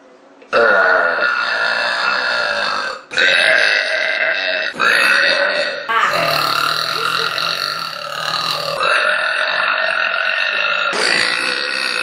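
A young woman's long, loud burps, one after another, cut together back to back so that each burp changes abruptly into the next every one to three seconds.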